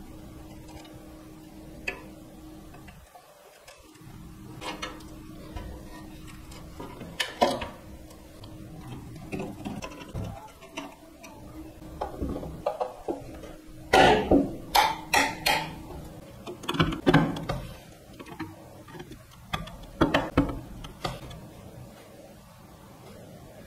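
Irregular clicks, taps and knocks of small plastic and metal parts being handled and fitted into an amplifier chassis, with a cluster of loud clicks a little past halfway. A faint steady hum runs underneath.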